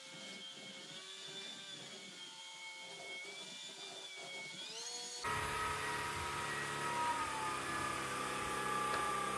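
Shark Stratos cordless stick vacuum running with a steady high whine. About five seconds in, its pitch rises and the sound becomes suddenly louder and fuller.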